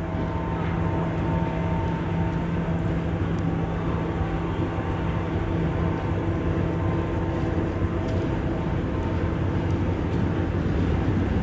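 VL10U electric locomotive hauling a freight train as it pulls away and approaches. A steady electric hum with several held tones runs over a low rumble, growing slightly louder near the end.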